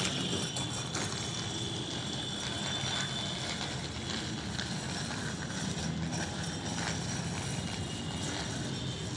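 A child's bicycle with training wheels rolling over floor tiles: a steady rolling rumble with ratchet-like mechanical clicking from the bike.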